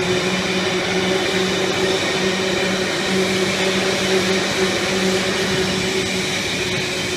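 Hydraulic scrap car baler's electric motors and hydraulic pumps running, a steady machine hum over a wide hiss.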